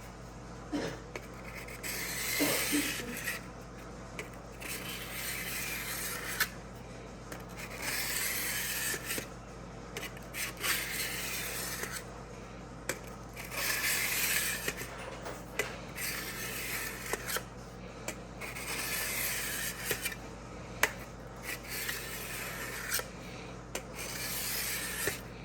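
Diamond sharpening block rubbed with light pressure along the steel blade of an old ChipAway drawknife: a repeated hissing scrape in strokes of one to two seconds with short pauses between them.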